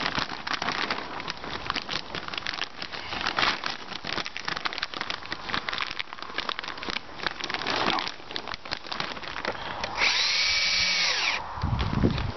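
Polythene sheeting crackling and rustling as it is pulled and smoothed against a timber batten. About ten seconds in, a cordless drill-driver spins up, runs for about a second and a half and winds down. Near the end it is set against the timber batten to drive a screw.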